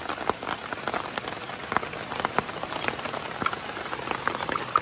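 Steady rain falling on a nylon tent fly overhead, many separate drops ticking on the fabric.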